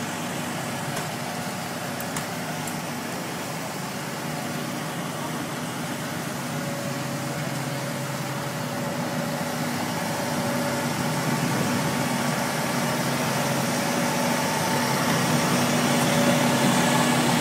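Fire engine idling, a steady low engine hum that grows louder over the last several seconds.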